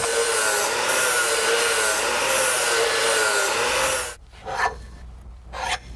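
Angle grinder beveling the edge of a carbon steel plate. The motor's whine wavers up and down as the disc is worked along the edge, and the grinding stops abruptly about four seconds in.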